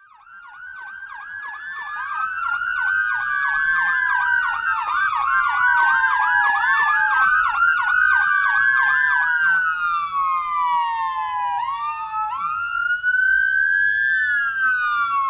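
Several overlapping siren wails, rising and falling slowly, with quick yelping chirps layered over them for the first two-thirds. The sound fades in from silence over the first few seconds, then holds steady.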